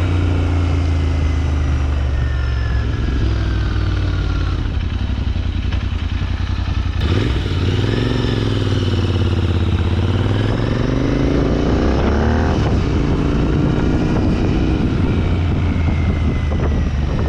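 Royal Enfield INT650's parallel-twin engine running through a Red Rooster Performance Stellar exhaust with the baffles fitted: a steady low exhaust note, with the revs rising and falling a few times in the middle.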